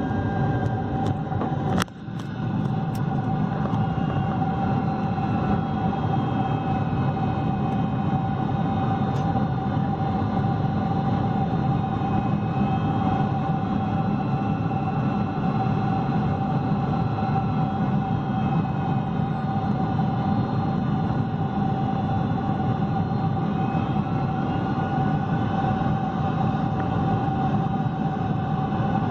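Steady jet engine and airflow noise inside the cabin of a Boeing 747-400 with Pratt & Whitney PW4000 engines, with a steady whine over the even rush. The level drops briefly about two seconds in.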